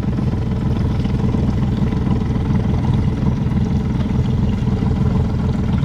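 Boat engine running steadily, a constant low hum with a faint water wash.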